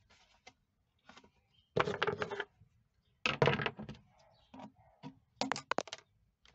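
Clicks and crackles of a thin clear plastic bottle being handled and turned in the hands, in three short bursts.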